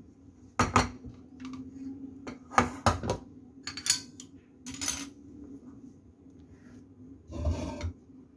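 Wooden chopsticks and a stainless steel plate clinking and knocking as tofu slices are pushed around on the plate: a handful of sharp clinks, then a short scraping rub near the end.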